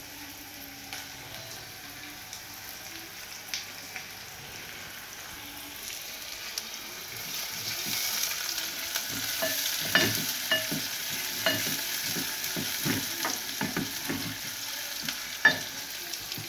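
Food sizzling in hot cooking oil in a pan, the sizzle swelling louder about halfway through. In the second half a wooden cooking stick stirs it, knocking repeatedly against the pan, with one sharper knock near the end.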